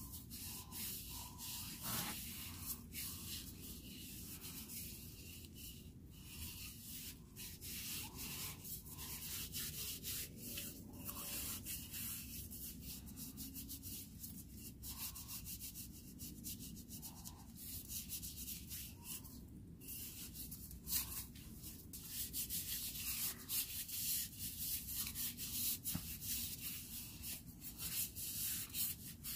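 Gloved hands rubbing boiled linseed oil into a wooden mallet head: a continuous rubbing with many quick, uneven strokes.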